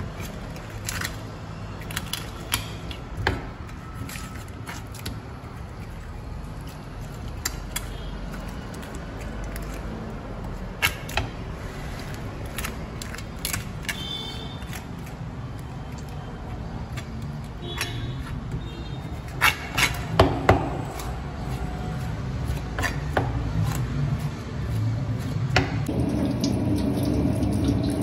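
Knife cutting and scraping a whole fish on a wooden chopping block, with scattered sharp taps and clicks of the blade, the loudest run of them a little past two-thirds through. Near the end a tap runs water steadily.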